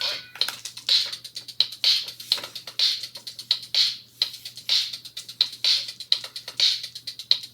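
Electronic drum-machine beat with synth sounds playing from a handheld music-mixing toy, a strong hit about once a second.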